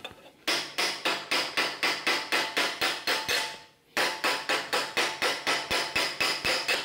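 Hammer tapping rapidly on the end of a metal exhaust header tube, about five light strikes a second with a slight metallic ring, shrinking the tube end down a little with each tap so it will fit. The tapping pauses briefly a little past halfway, then carries on.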